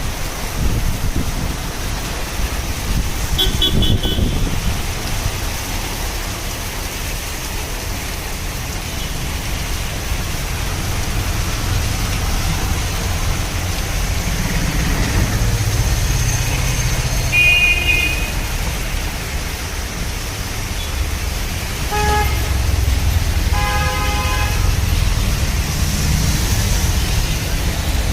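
Steady rain with the low rumble of road traffic, and car horns honking: a short honk about three seconds in, another just past the middle, and a few more close together about three-quarters of the way through.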